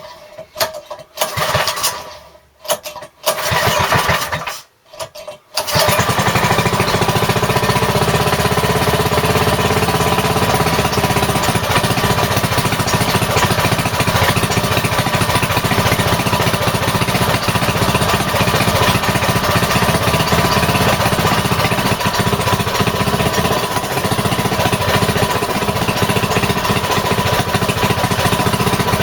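Rebuilt small single-cylinder engine, run without its air filter, being cranked in several short bursts before it catches about five and a half seconds in and then runs steadily.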